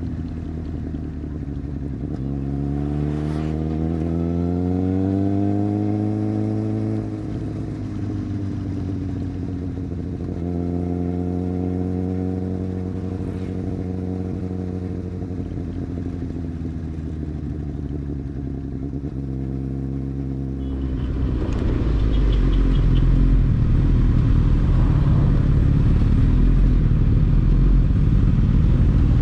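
Superbike engine pulling under acceleration, its pitch climbing for several seconds and then holding steady at cruise. About two-thirds of the way through, a louder low rumbling noise takes over.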